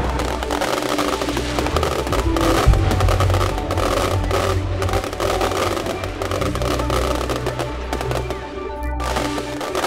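Aerial fireworks bursting and crackling, many sharp pops in quick succession, over music that plays throughout.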